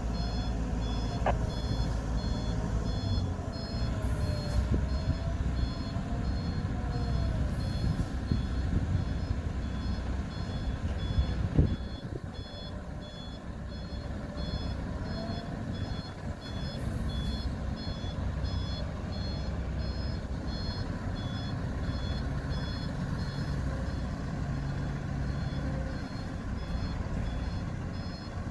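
A heavy construction machine's reversing alarm beeps in a steady, even rhythm over the low rumble of a diesel engine. A single sharp knock comes just under halfway through.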